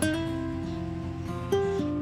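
Background music: a plucked-string tune, with fresh notes struck at the start and about one and a half seconds in.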